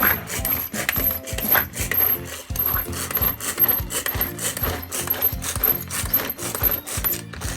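Rapid, irregular clicking and clinking over background music.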